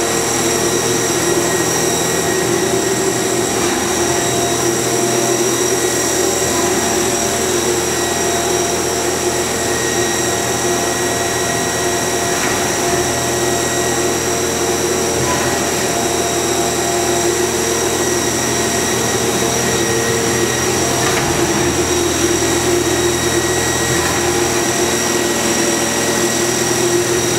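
Hitachi Seiki HT20SIII CNC turning center running, a steady machine hum with several high whining tones over it.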